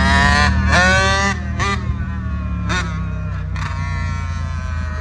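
Two-stroke dirt bike engine revving high during a wheelie: two long rising revs, then three short blips about a second apart. Underneath runs the steady low drone of a following vehicle's engine.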